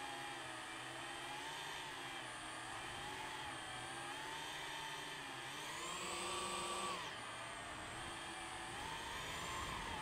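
DJI FPV drone's motors and propellers whining, the pitch bending up and down with the throttle. About six seconds in it rises to a louder, higher whine that drops away sharply a second later.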